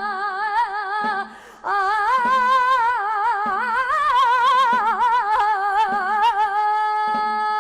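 Flamenco-style solo singing: a long wordless 'ay' melisma with a wide vibrato. It breaks for a short breath about a second and a half in and ends on a long, steady held note.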